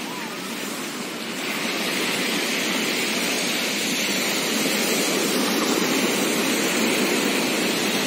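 Surf washing onto a sandy beach: a steady rush of waves that grows louder about a second and a half in.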